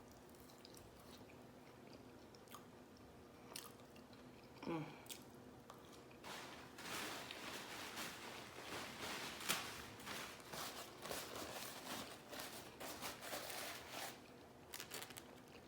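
A person chewing food close to the microphone, with wet, crackly mouth sounds that grow dense from about six seconds in. There is a brief low hum near five seconds in.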